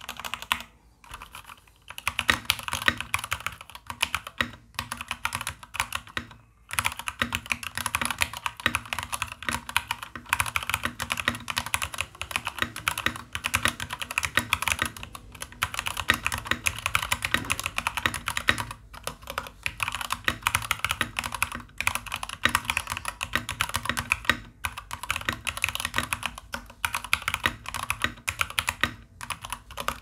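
Fast typing on an E-DRA EK384W v2 mechanical keyboard with Gateron Red linear switches and PBT double-shot keycaps: a quick, steady stream of key clacks broken by a few short pauses. The switches and stabilizers are unlubricated, and the reviewer finds the stabilizers well finished but the spacebar still a little rattly.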